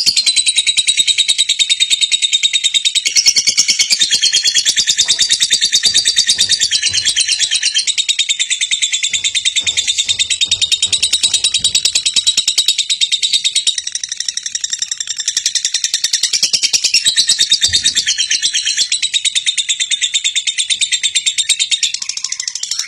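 Birds chirping in a fast, unbroken stream of high notes.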